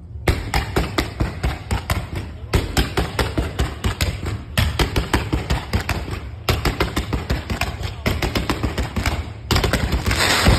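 Fireworks firing rapid volleys of sharp bangs, several a second, in runs of about two seconds broken by brief pauses, ending in a dense crackle.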